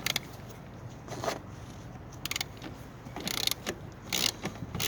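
Hand ratchet clicking in short runs, about one run a second, as it is worked back and forth to loosen fasteners on a car's air intake.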